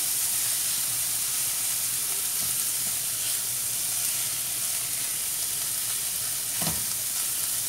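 Diced calabresa sausage, onion and garlic sizzling steadily in a very hot frying pan while a silicone spatula stirs them, with one short knock near the end.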